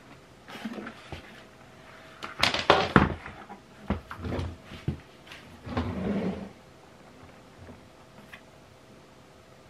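Hollow plastic knocks and clatters from a Kärcher WD3 wet-and-dry vacuum being taken apart by hand: the motor head with its cartridge filter is set down and the yellow plastic tank moved about. The loudest clatter comes about two and a half to three seconds in, with a few more knocks and rustles up to about six and a half seconds.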